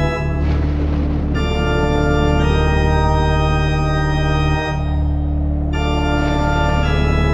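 Yamaha Electone STAGEA ELS02C electronic organ playing slow, held organ chords over a steady low bass note, the chords changing every second or two. A hissing swell rises under the chords about half a second in and again near the end.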